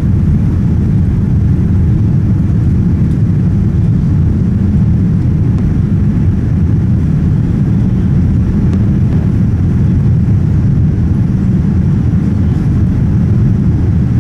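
Steady, unchanging low roar of a Boeing 787 Dreamliner airliner's engines and airflow, heard from inside the cabin.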